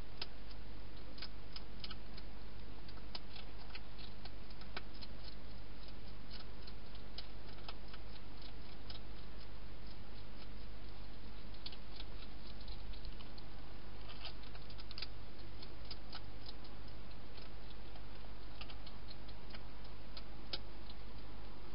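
Wild hedgehog chewing dry food, giving runs of sharp, irregular crunching clicks, over a steady hiss and low hum.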